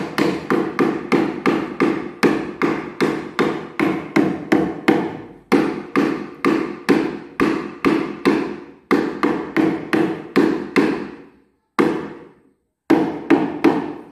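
Claw hammer pounding on a plywood panel in fast runs of blows, about three or four a second, each with a short woody ring. The runs break briefly about five and nine seconds in, and pause for longer near the end before a last short run.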